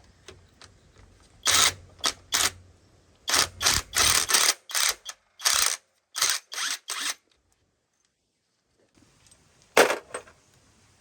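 A workshop tool run in about a dozen short bursts, each under half a second, then one more burst near the end.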